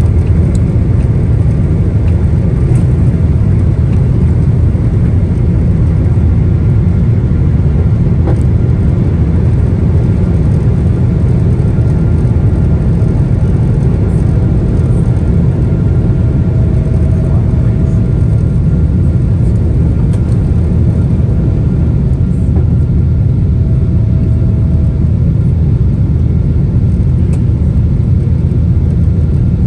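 Boeing 777-200ER's Rolls-Royce Trent 892 turbofans at takeoff thrust, heard from inside the cabin: a loud, steady, deep roar through the liftoff and initial climb.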